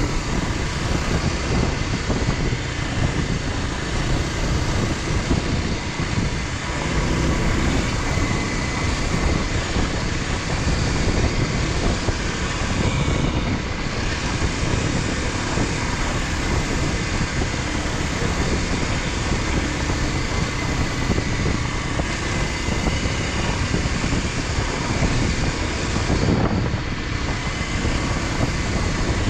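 Motorcycle running steadily under way, a continuous rush of engine and wind noise with no clear breaks.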